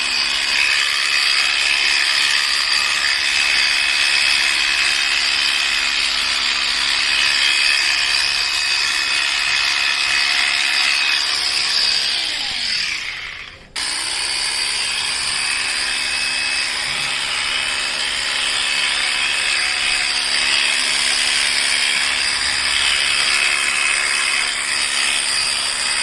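Electric sheep-shearing clippers running with a steady high-pitched whine. About halfway through the motor winds down almost to a stop, then starts up again at once and runs on.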